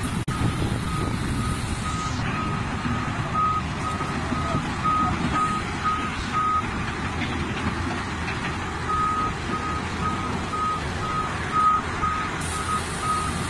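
Cat excavator's travel alarm beeping about twice a second, pausing for a couple of seconds midway, over a steady low rumble.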